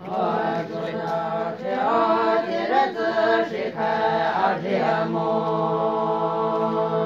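A group of women singing together in a slow, chant-like song, phrase after phrase, settling on one long held note about five seconds in.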